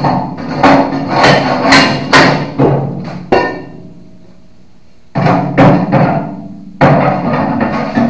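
Metal hammer blows on a steel skid steer bucket and its bolted cutting edge, each strike ringing out through the bucket. They come in quick, irregular runs of two or three a second, with a pause of about a second and a half in the middle.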